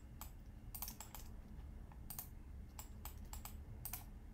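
Faint computer keyboard keystrokes: a few separate clicks at irregular intervals, roughly one or two a second.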